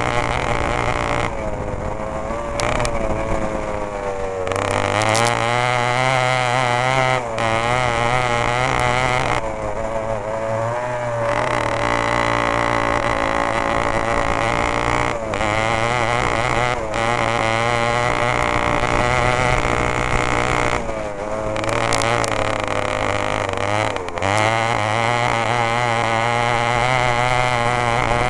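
Yamaha RX 180 two-stroke single-cylinder engine driving an off-road cross kart, revving up and down under throttle. It eases off and winds back up several times, with a few short breaks in the note between.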